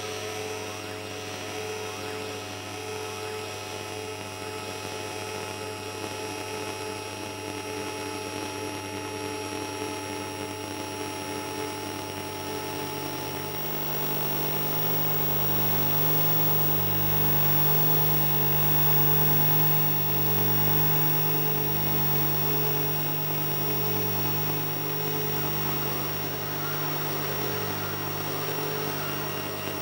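Experimental electronic noise drone made with analog machines: many steady tones stacked over a hiss, with a higher tone pulsing evenly. A low hum swells up about twelve seconds in and holds.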